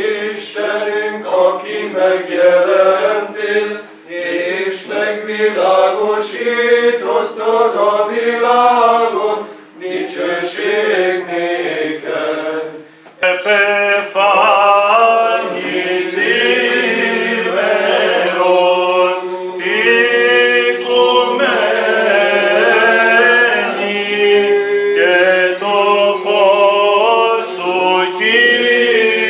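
Unaccompanied Byzantine chant from several voices, a melody moving over a steadily held drone note (the ison). It breaks off briefly about 13 seconds in and comes back fuller.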